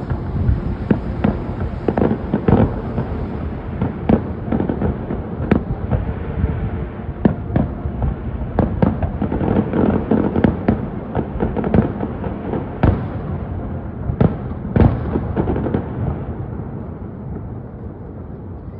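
Fireworks going off: a rapid run of sharp bangs and crackling pops over a continuous rumble, thinning out and getting fainter over the last few seconds.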